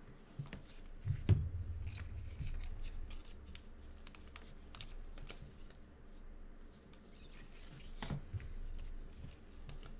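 Gloved hands handling a stack of trading cards: cards sliding and rustling against each other, with soft knocks as the stack is tapped and set on the table, the loudest about a second in and again near eight seconds.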